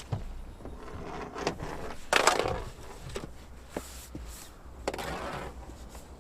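Knocks, scuffs and clatter of gear being handled in a fishing boat, with two short rushing noises about two and five seconds in, over a steady low hum.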